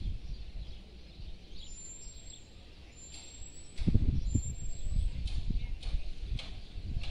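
Outdoor ambience: a low, irregular rumble on the microphone that gets stronger about four seconds in, with three thin, high, slightly rising bird whistles in the middle.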